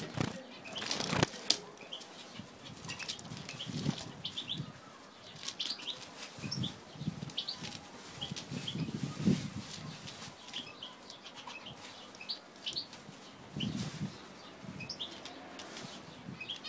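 Zebra finches giving short, high chirping calls again and again, with bursts of wing flapping now and then.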